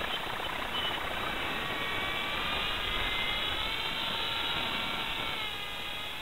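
Motor and propeller of a radio-controlled scale autogyro whining in flight, the pitch dipping slightly in the second half as it passes and moves away, over a steady rushing noise.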